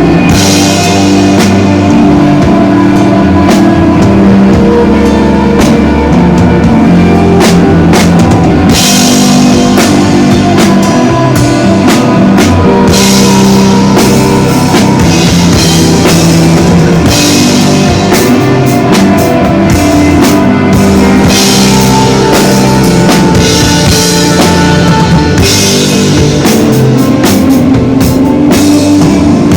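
A desert rock band playing live, with electric guitar and bass over a drum kit. The music is loud and steady, and several stretches of heavy cymbal wash come and go.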